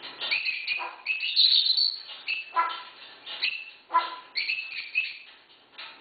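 African grey parrot mimicking a dog's bark: about three short barks, mixed with several high whistled squawks and chirps.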